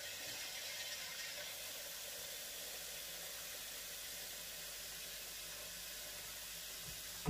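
Kitchen tap running steadily into a steel pot of cassava leaves, an even hiss of pouring water.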